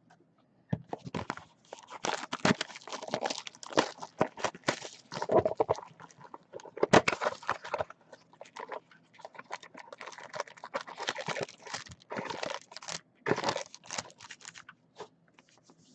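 Trading card packs being unwrapped: wrappers torn open and crumpled, crinkling and tearing in irregular bursts with short pauses.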